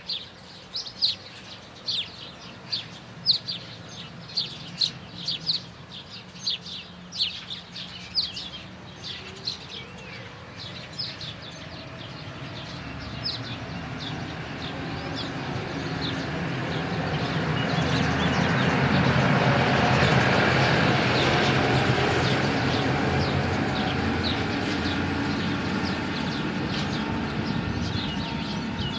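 A bird chirping over and over in quick, short, high notes. About halfway through, the rising noise of a passing vehicle swells to its loudest and then slowly fades, drowning out the chirps.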